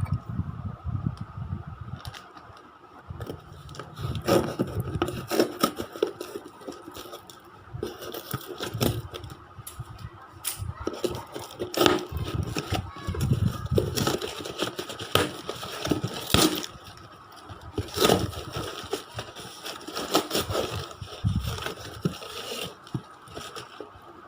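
Packaging being handled and opened: irregular crackling, scraping and tearing with sharp clicks and knocks, over a faint steady high tone.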